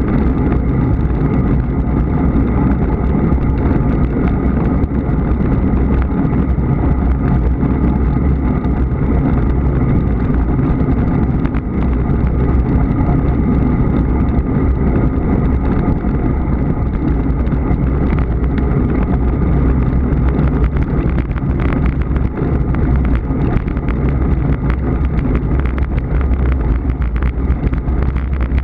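Steady wind buffeting and road rumble on the microphone of a camera moving with a bicycle on the road, loud and unbroken throughout.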